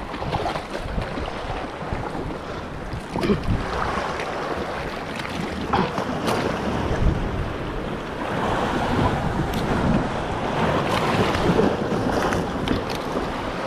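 Sea waves washing in and wind buffeting the microphone, a steady rushing noise with a few sharp clicks.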